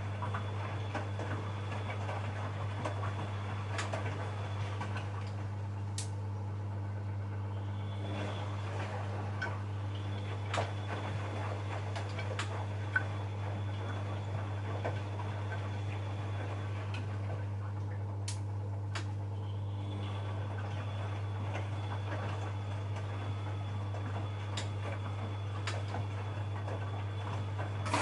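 Bosch Maxx WFL 248Y front-loading washing machine running a wash, with a steady low hum and scattered clicks from the turning drum. The drum noise drops away twice, about five and seventeen seconds in, as the drum pauses between turns.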